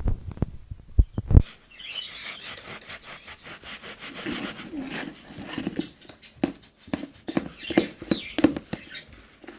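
A few knocks, then thick slime being stirred and squished in a bowl, with a run of irregular sticky clicks and squelches.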